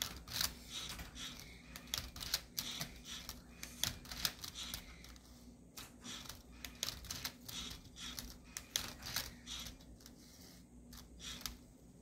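Lego Boost Rubik's cube solver robot working through a solve: irregular plastic clicking and clacking as its mechanism tips the cube over and turns its layers.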